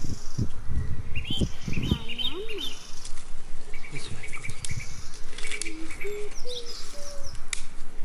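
Small birds chirping in short repeated phrases, over a man's knife cutting and scraping thin branches, with a few low wooden knocks in the first couple of seconds.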